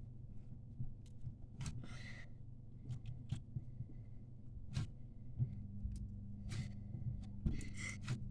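Homemade borax-free slime being squished and stretched by hand: scattered soft sticky clicks and pops, with two short rustling swishes, about two seconds in and near the end.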